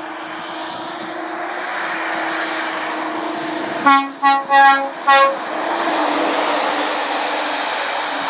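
A heavy lorry passing on a wet road, its tyres hissing through the spray over a steady engine note, growing louder as it comes by. About four seconds in, four short horn toots sound in quick succession.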